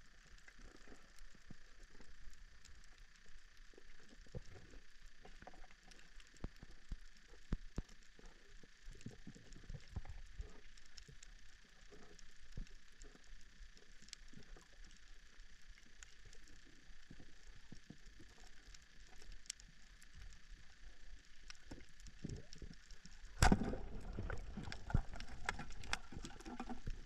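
Underwater reef ambience picked up through a camera housing: irregular faint clicks and crackles over a steady hiss. About three quarters of the way through comes a sudden louder rush, and the crackling grows denser afterwards.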